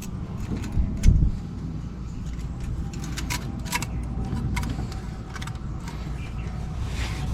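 Light metallic clicks and taps of parts being handled as a gasket and valve are fitted, with one louder knock about a second in, over a steady low rumble.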